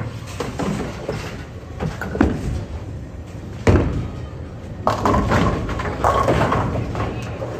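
Bowling-alley sounds: several sharp crashes and thuds, the loudest about halfway through, over a steady hubbub of indistinct voices.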